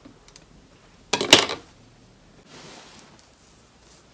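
A short clatter of several hard knocks and clicks about a second in, like a small hard object being handled or set down, followed by a soft rustle a little later.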